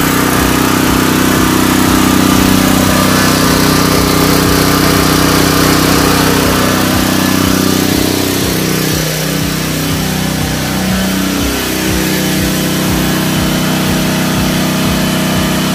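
Extreme ET4000 4000-watt inverter gas generator running steadily, a loud even engine drone that reads about 84 dB on a meter six metres away. The drone wavers slightly around the middle, then settles again.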